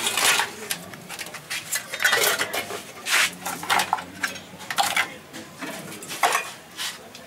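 Scrap metal and found-object sculpture pieces clinking and clattering as they are handled and shifted among the pile, in irregular knocks with the loudest about 2, 3, 5 and 6 seconds in.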